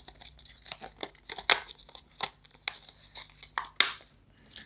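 Plastic packaging of a disposable eyebrow razor crinkling and crackling as it is handled and opened, an irregular run of short sharp crackles, strongest about a second and a half in and near the end.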